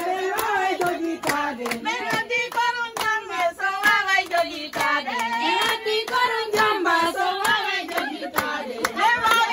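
A group of women and girls chanting a traditional Guinean Fulani wedding song in celebration of the bride, with steady hand clapping at about two claps a second.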